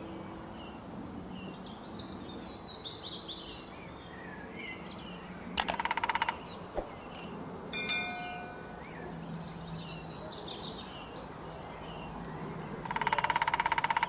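Great spotted woodpecker drumming on a tree trunk: a rapid roll of strikes about halfway through and a longer roll near the end, over background birdsong of small chirps.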